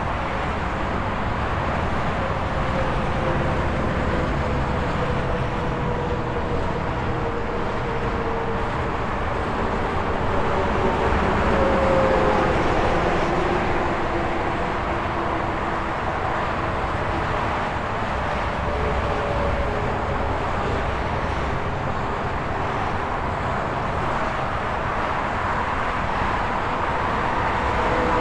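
Steady highway traffic noise: trucks and cars passing, tyre rumble and engine drone, swelling and easing as vehicles go by, with engine tones sliding down in pitch as they pass.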